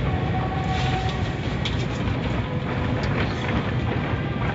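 Automatic car wash machinery running with a steady low rumble, with scattered clicks and knocks over it.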